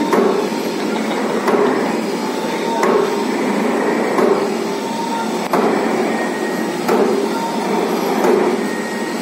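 Buffet paper sheet making machine running, with a sharp clack about every one and a half seconds as its cutter chops the paper web into sheets, over a steady running noise.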